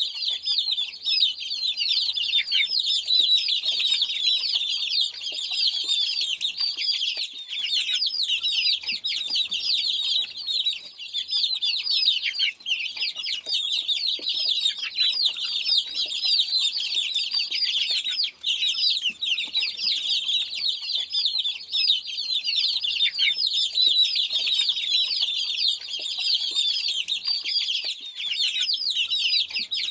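A crowd of chicks peeping continuously: many short, high, downward-sliding cheeps overlapping without a break.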